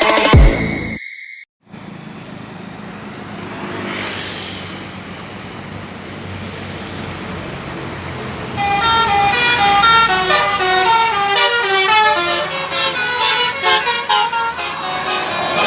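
Tour bus's multi-tone 'telolet basuri' horn playing a quick melody of stepped notes, starting about halfway in, over steady traffic and engine noise. The first second and a half is electronic dance music that cuts off abruptly.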